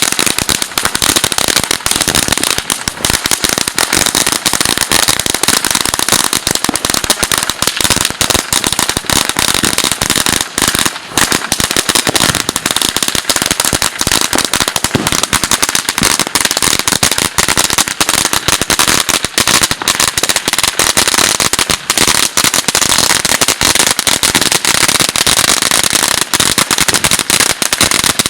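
Firecrackers going off in a dense, unbroken run of rapid pops that keeps on throughout.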